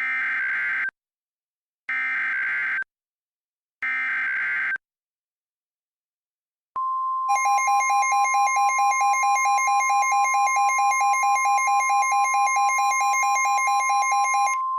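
Emergency Alert System tornado warning alert: three bursts of digital SAME header data tones, each about a second long and about a second apart. After a pause, a steady single-pitch warning tone in the style of the NOAA Weather Radio 1050 Hz alarm starts, and a fast-pulsing buzzing tone joins it half a second later. The pulsing stops just before the end while the steady tone holds.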